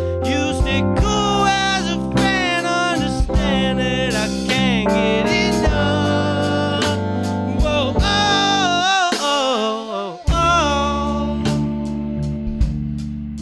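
Live jazz-leaning band playing: a lead melody with sliding, wavering notes over bass guitar, keys and drum hits. The bass and drums drop out briefly about nine seconds in and come back in with a hit.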